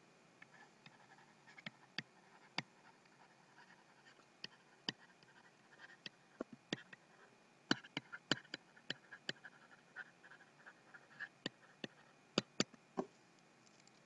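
Faint sound of a stylus writing on a tablet: irregular sharp taps as the pen tip meets the surface, with soft scratchy strokes between them as words are handwritten.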